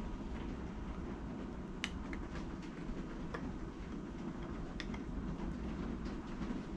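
Steady low rumbling background noise, with a few faint sharp clicks about two, three and a half and five seconds in.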